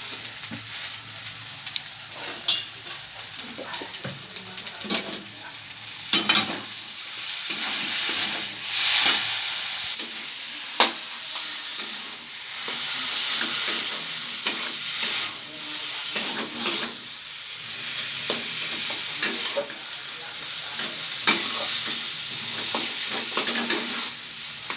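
Potato masala sizzling as it fries in oil in a pan, stirred with a spatula, with frequent clicks and scrapes of the spatula against the pan.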